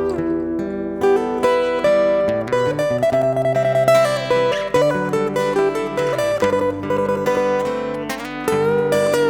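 Instrumental break on acoustic plucked strings: a picked melody of quick notes over a held bass line, with no singing.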